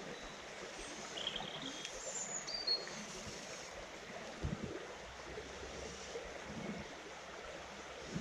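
Shallow, low river running over stones, a steady rush of water, with a few brief high chirps in the first few seconds and a dull low knock about halfway through.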